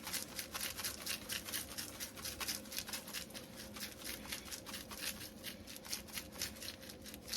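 Taco seasoning being shaken out over chicken: a quick, steady run of short scratchy rattles, about five or six shakes a second, thinning out near the end. A faint steady hum runs underneath.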